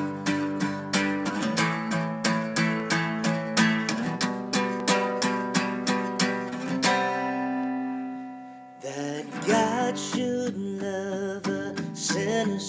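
Acoustic guitar playing an introduction of evenly spaced plucked chords, ending on a chord left to ring and fade about seven seconds in. About nine seconds in, a singer begins a slow hymn over the guitar.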